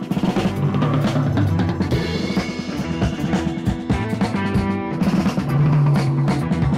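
Background music with a steady drum-kit beat over held instrumental notes.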